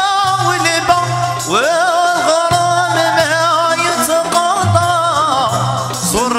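A man sings a Moroccan chaabi song live, in long ornamented phrases whose pitch wavers and swoops, with instruments playing along.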